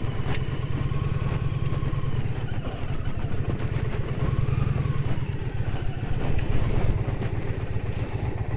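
Indian Challenger's liquid-cooled V-twin engine running at low speed as the heavy motorcycle is ridden slowly over soft, churned mud and onto a dirt track.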